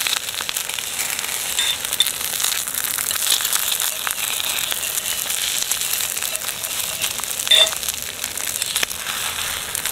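An egg frying and sizzling in a hot pan, a steady hiss with many small crackles and pops, as a metal fork pushes and scrapes at it in the pan. There is a brief squeak about seven and a half seconds in.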